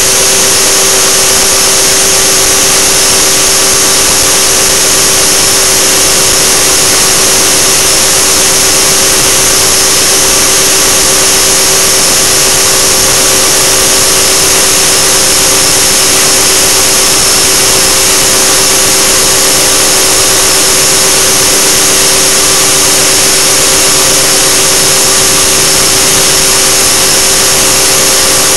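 Align T-Rex 600 radio-controlled helicopter heard through its own onboard camera: the motor and rotor drive running at a steady speed, a constant whine over a loud hiss.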